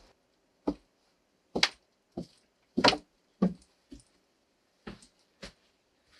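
Irregular sharp wooden knocks and thuds in a small log room, about eight of them: footsteps on wooden steps and planks bumping as boards are carried in.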